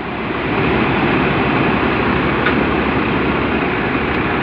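Tractor-powered Mayur thresher threshing isabgol (psyllium) at full feed, running steadily with the tractor's engine drone underneath.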